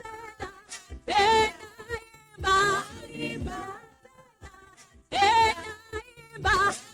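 Praise and worship singing in Luganda: a voice sings short, sliding phrases with brief pauses between them.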